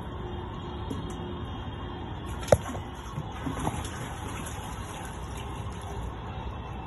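Water sloshing and splashing as monkeys bathe inside a black plastic water tank, with one sharp loud knock about two and a half seconds in and a couple of softer knocks a second later.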